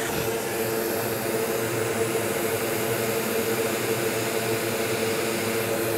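Steady whir of a blower fan on a soldering bench, with a constant low hum in it.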